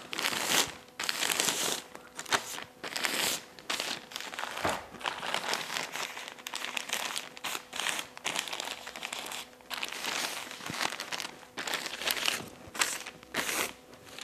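Newspaper crinkling and rustling in irregular bursts as its sides are folded over and pressed flat by hand.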